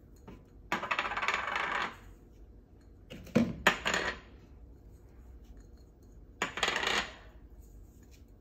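Ground spices poured and shaken out of small glass prep cups into a plastic mixing bowl of flour: three short bursts of gritty rattling, about a second in, halfway through and near the end.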